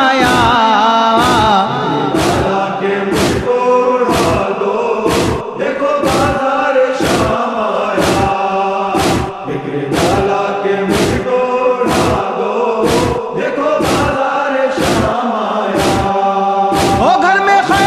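A nawha lament chanted by voices in a slow melody over a steady beat of strikes, about one a second: matam, the rhythmic chest-beating of Shia mourning.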